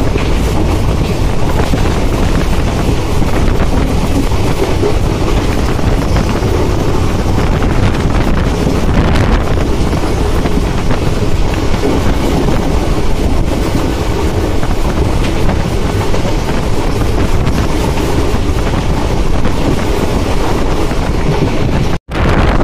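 Mahananda Express passenger train running at speed, heard from an open coach doorway: a steady rumble of wheels on rail mixed with wind buffeting the microphone. The sound cuts out for a moment near the end.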